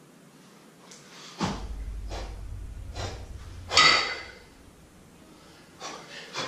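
A kettlebell lifter's forceful breathing under load: sharp, noisy breaths in and out roughly once a second, the loudest about two thirds of the way through, over a low rumble that comes in about a second and a half in.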